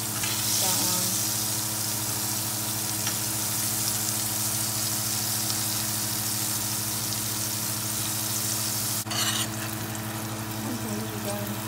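Battered shrimp frying in very hot oil in a stainless steel skillet: a steady sizzling hiss, with a steady low hum beneath. The sizzle dips briefly about nine seconds in.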